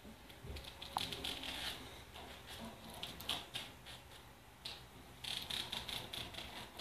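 Pet rodent gnawing a hard biscuit held to the bars of a wire cage: quick, irregular crunching and scratching that comes in a few short clusters.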